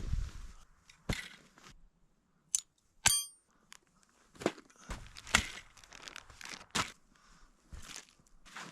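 Irregular crunching footsteps in snow, with uneven gaps between steps. A brief sharp, high ringing sound about three seconds in.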